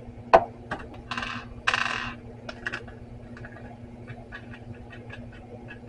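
Small metal carburetor parts clinking on a workbench: a sharp click, two brief rattling scrapes, a few more clicks, then a run of light ticks as the parts are handled.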